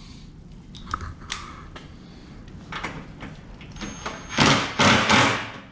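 Cordless drill driving a fastener into a car headlight mount in two or three short runs about four and a half seconds in, after a few light clicks and knocks from handling the plastic parts.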